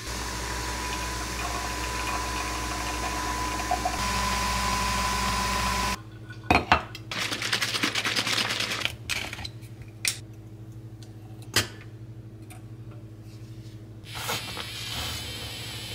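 Nespresso Vertuo capsule coffee machine brewing: a steady hum with a thin high whine, which cuts off about six seconds in. Then come clinks and a pour from a carton into a glass pitcher, and a quieter steady whir near the end.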